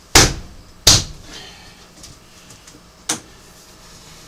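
Sharp knocks and clacks of wire and plastic surface wiring channel being handled while the wire is fed into it: two loud knocks in the first second and a lighter one about three seconds in.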